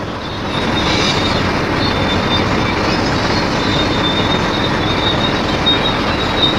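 Truck running: a steady mechanical rumble with a faint high-pitched whine over it.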